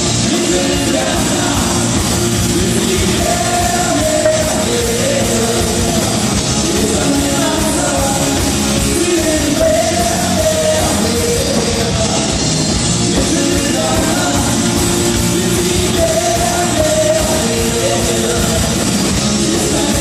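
Live band playing a rock song with a sung melody line, loud and steady throughout.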